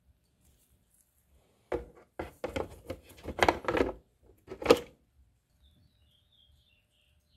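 Rusty pedal-tractor roller chain clattering into a plastic canister of soaking liquid, a rattling run of metal knocks against the plastic for about three seconds, the loudest near the end, as the chain is pushed down to soak off the rust.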